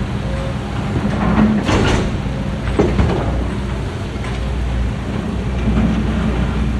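A construction machine's engine running steadily, with a couple of sharper knocks and scrapes about two and three seconds in.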